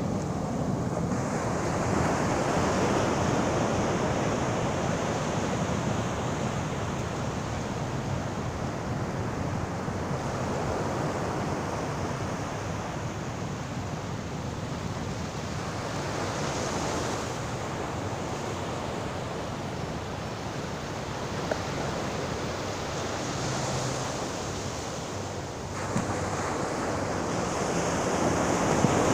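Sea surf washing continuously onto the shore, swelling and easing as waves break.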